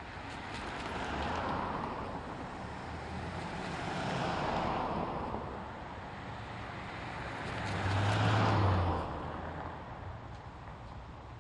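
Road traffic: three vehicles drive past one after another, each swelling and fading away, the last and loudest with a low engine hum.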